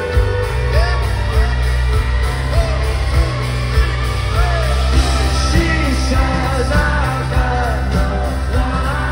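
Rock band playing live, heard from the crowd: electric guitar, heavy bass and a steady drum beat, with a male lead singer.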